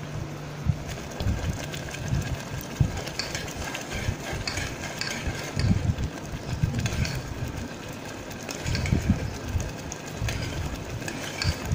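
A spoon stirring and scraping a simmering chana dal and jaggery mixture in an aluminium pressure-cooker pot, with irregular low knocks and scrapes against the pot as the mixture cooks down and thickens.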